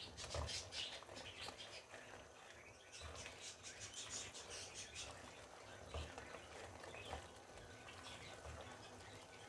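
Faint bubbling and crackling of sohan halwa syrup boiling in a karahi, with ghee added, as a spatula stirs it, with a few soft knocks of the spatula against the pan. The crackling is densest in the first second and a half and again from about three to five seconds in.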